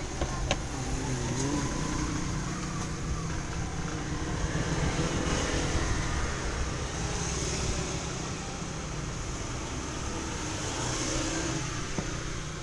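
Motor vehicle engine running nearby, a steady rumble with some rising and falling engine pitch, like road traffic.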